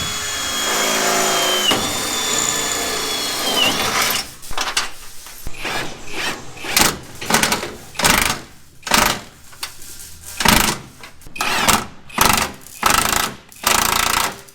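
Power tool at work on car sheet metal: a steady motor whine that sags in pitch twice as it takes load, then a run of short bursts, one or two a second.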